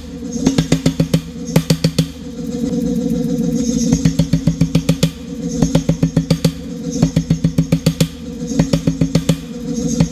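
Power hammer pounding a glowing bar of steel held in tongs, in short runs of about seven or eight blows a second with brief pauses between runs, over a steady low hum.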